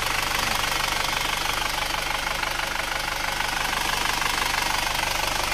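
Isuzu Panther's four-cylinder diesel engine idling steadily at working temperature, with the even, rapid clatter of a diesel at idle.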